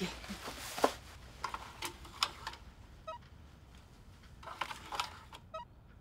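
A card payment terminal at a shop counter being handled while a card is run: scattered light clicks and knocks, and short faint electronic beeps about halfway through and again near the end.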